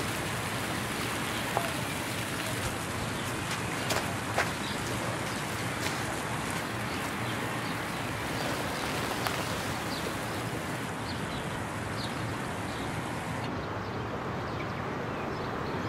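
Water from many fountain jets splashing down into a basin: a steady, even rush with a few faint patters. The highest part of the hiss drops away near the end.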